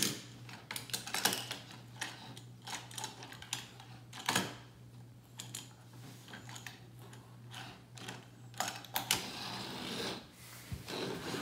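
Plastic pieces of a Hot Wheels Downtown Burger Dash playset clicking and knocking on a wooden tabletop as they are handled and fitted together, in irregular clicks with a few louder knocks.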